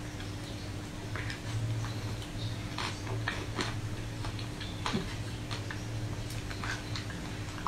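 Close-miked mouth sounds of eating soft ice cream: irregular small wet clicks and smacks of lips and tongue, with a steady low hum underneath.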